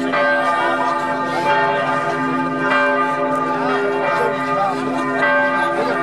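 Several church bells ringing together in a continuous peal, long tones at different pitches overlapping and re-struck throughout, with people talking faintly underneath.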